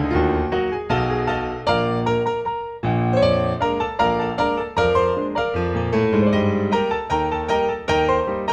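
Background piano music, notes and chords struck a few times a second, each dying away.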